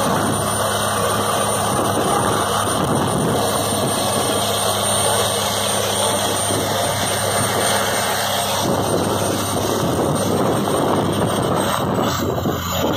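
Longtail boat's inboard engine running steadily at speed, under a steady rush of wind and spray past the hull; in the last few seconds the engine's hum sinks beneath the rush of water and wind.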